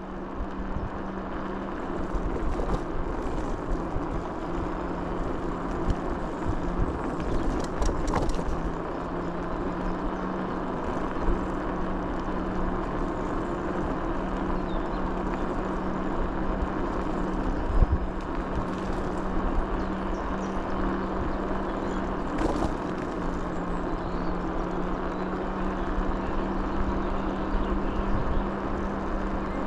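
A motor vehicle running steadily on the move, a constant engine drone with road noise, broken by a few brief knocks or rattles.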